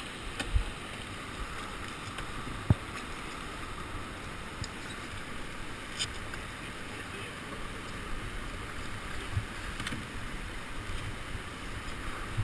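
Steady rush of river rapids, with a few short sharp knocks, the loudest about three seconds in.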